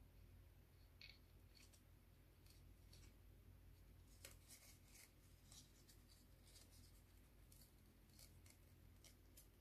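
Faint rustling and creasing of a sheet of origami paper being folded, in short scratchy strokes at irregular intervals.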